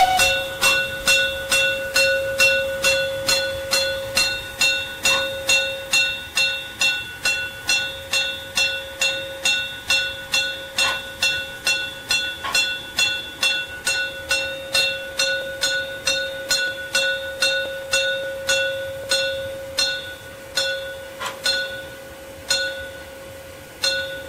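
Steam locomotive bell rung steadily, about two strikes a second, as the warning for an unguarded level crossing. The strikes weaken and become uneven near the end, then stop.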